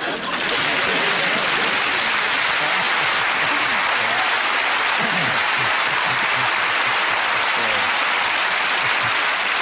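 Studio audience applauding steadily after the prank is revealed, a dense, even clapping that sets in about a second in, with faint voices underneath.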